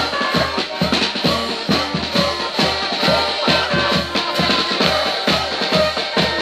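Live street band music: a helicon playing a steady oom-pah bass line under an accordion melody, a dance tune with an even beat.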